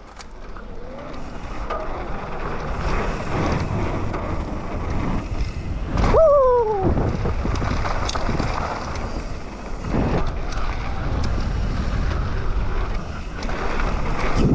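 Mountain bike riding over dirt trail: a steady rumble of tyres and wind rushing over the camera microphone, swelling as the bike picks up speed about a second in. About six seconds in comes a short falling tone, the loudest moment.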